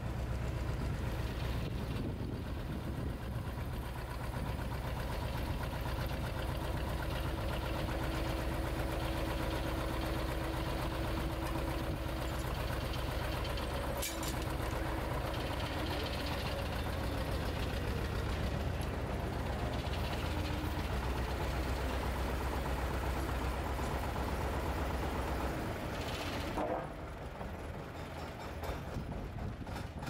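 Engine of heavy machinery running steadily, with a single sharp knock about halfway through. The engine sound drops away a few seconds before the end.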